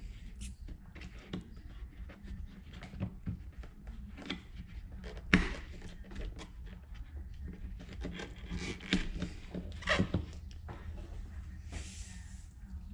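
Scattered light clicks and knocks of small parts being handled and set down, the sharpest about five seconds in, over a steady low hum.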